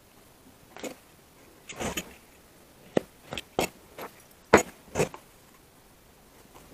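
Hand work on the battery box while a handle is being fitted: a brief scraping rustle near two seconds in, then about six irregular sharp knocks and clicks over the next two seconds, the loudest about four and a half seconds in.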